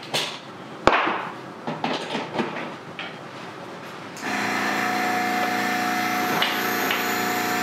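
A few clicks and knocks, one sharp click about a second in, then about four seconds in a small piston-type airbrush compressor with an air tank switches on and runs with a steady, even hum. It is refilling a tank that has been let down.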